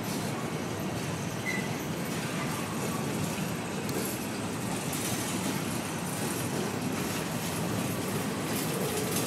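Freight train's covered hopper cars rolling slowly past, a steady noise of steel wheels on the rails, with one brief faint squeal about a second and a half in.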